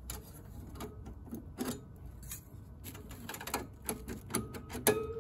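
Irregular clicks and metal clatter of hands working the PCI card retention bracket and cards in an HP DL785 G5 server's sheet-steel chassis. Near the end comes a louder metal clack that rings on briefly.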